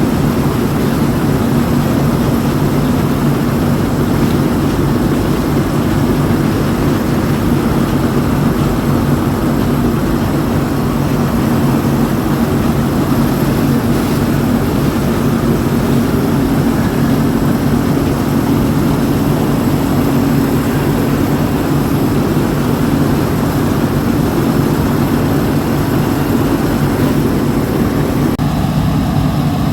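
Farm harvest machinery engine running steadily at constant speed: a continuous low drone with a hissing mechanical wash over it.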